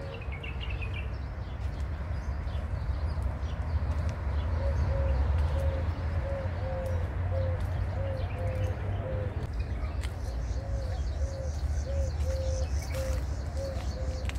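A dove cooing in two long runs of short, evenly spaced low notes, about two a second, with a brief faint chirp of another bird at the start. A steady low rumble runs underneath.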